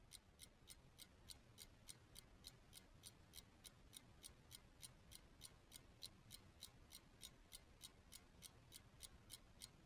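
Faint, even ticking, about three to four ticks a second, like a clock in a quiet room.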